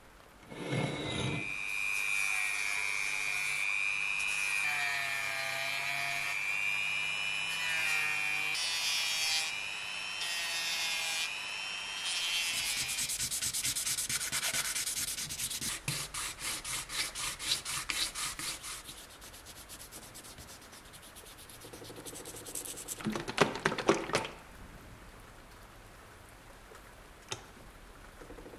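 A small power tool whining steadily at a high pitch that wavers as it bears on the work, then sanding strokes, about two a second near the end. A few sharp clicks follow in the last third.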